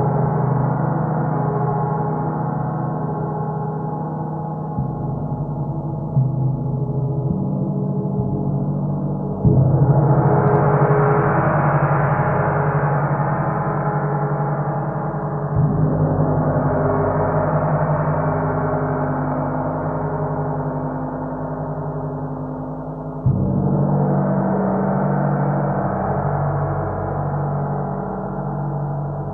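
A 32-inch bubble drop gong played with a large soft mallet, ringing on without a break. It is struck firmly about nine seconds in, again around fifteen and twenty-three seconds, with lighter touches before that. Each stroke blooms into a fuller, brighter shimmer over a second or two and then slowly dies away.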